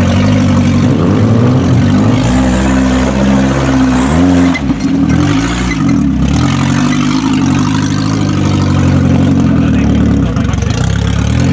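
Off-road 4x4 engine running under load and revving. The pitch swings up and down several times in quick succession around the middle, and otherwise holds fairly steady revs.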